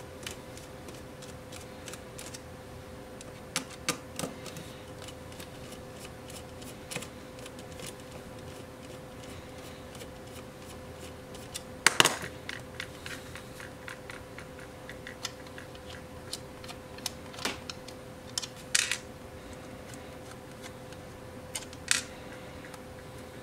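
Small screwdriver and hands working the screws out of a clear plastic multimeter case: scattered light clicks and taps of metal on plastic, with a louder double clack about halfway through. A faint steady hum sits underneath.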